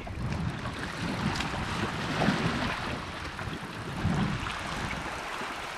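Sea washing against shore rocks, a steady rush of surf with wind buffeting the microphone.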